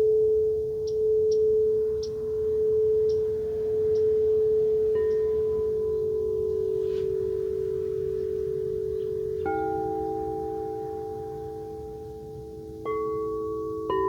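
Singing bowls ringing: one bowl's steady tone swells and fades in slow waves, then other bowls are struck one after another, about five, nine and a half and thirteen seconds in. Each struck bowl rings on, so several tones sound together by the end.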